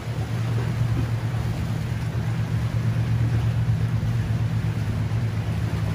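Scimitar-class patrol boat's engines running at speed, a steady low drone over a wash of wind and water noise.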